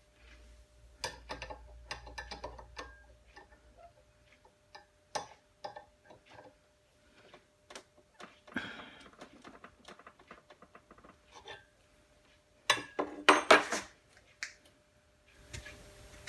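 Metal tool parts clicking and clinking as they are handled and set down, with a louder flurry of metallic clanks about thirteen seconds in.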